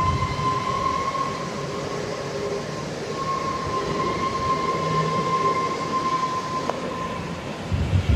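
Narrow-gauge Great Laxey Mines Railway train running on its rails: a steady low rumble with a steady high-pitched whine over it. The whine breaks off briefly about three seconds in and stops about seven seconds in, at a single click.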